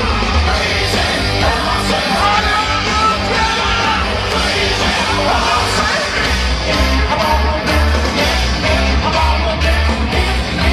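Loud heavy rock music with a pulsing bass beat.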